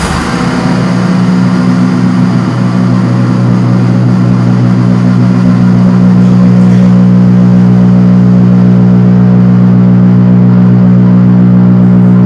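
Loud, steady low drone of several held low pitches with a rough wash over them. It starts suddenly, swells a little over the first few seconds, then holds without change.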